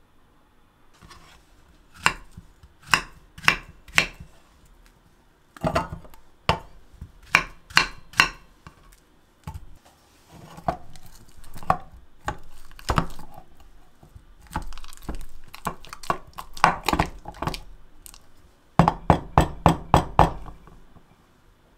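Sharp knocks in short runs from a knife cutting banana on a wooden cutting board, then a spoon mashing banana in an enamel mug and striking its sides. It ends with a fast run of about six knocks.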